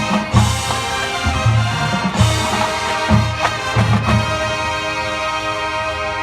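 High school marching band playing its competition show: brass and percussion hit a series of loud low accents over the first four seconds, then settle into a long held chord.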